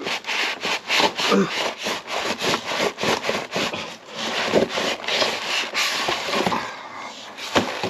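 Packaging being handled and pulled open by hand: rapid, irregular rustling and scraping strokes, with one sharp click near the end.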